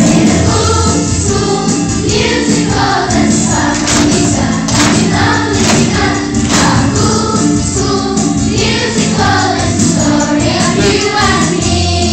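A group of children singing a song together in chorus, with musical accompaniment.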